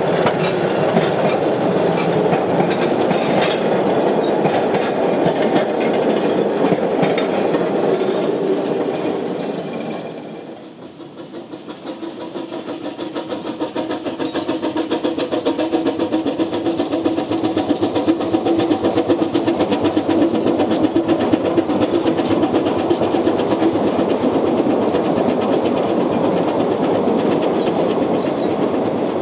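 Narrow-gauge steam locomotive working: a loud, steady chuff of exhaust. About ten seconds in it drops away, then a steam train is heard approaching, its exhaust beats and wheels growing louder until it runs past steadily.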